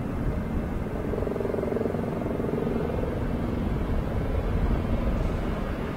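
Steady rumble of a jet airliner's engines, with a low hum that is a little stronger in the middle.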